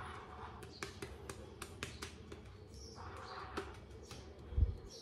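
Shaving brush working lather against stubble on the face: a soft wet squish with many small crackling clicks, and a dull low thump near the end.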